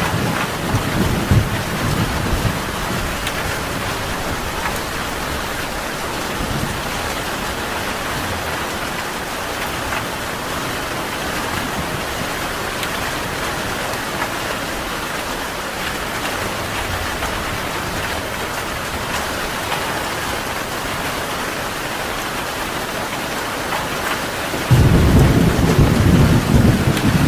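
Steady heavy rain, with a low rumble of thunder fading in the first couple of seconds and a louder rumble of thunder breaking in suddenly near the end.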